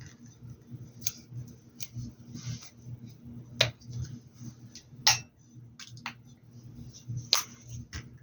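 Painting supplies being handled: sharp clicks and taps at irregular intervals, about eight in all, with the loudest a little after three and a half, five and seven seconds in, over a low steady hum.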